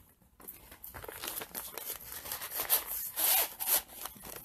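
Plastic packaging rustling and crinkling as it is handled, a string of short scrapes that is loudest a little after three seconds in.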